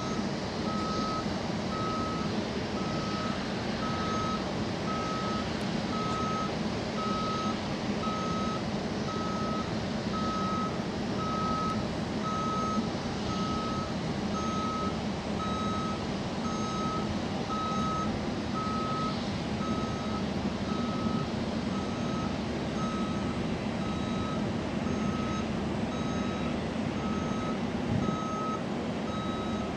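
Vehicle reversing alarm beeping evenly, a little more than one beep a second, over a steady drone of engine noise.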